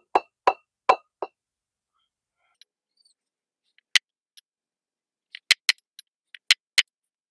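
Red mallet striking a bearing-race driver to seat a new wheel-bearing race in a front hub-and-rotor, a sharp knock with a short ring on each blow. Four quick taps, a pause, one tap about four seconds in, then a faster run of taps near the end.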